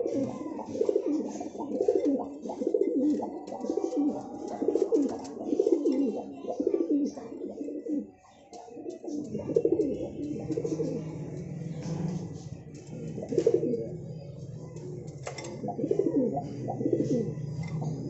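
A breeding pair of domestic pigeons at the nest bowl, cooing over and over in repeated pulsing phrases. From about nine seconds in, a steady low hum joins underneath.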